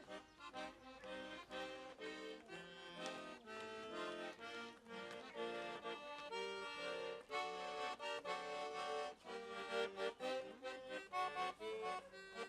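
Accordion playing an instrumental melody over held chords, a lead-in to a song.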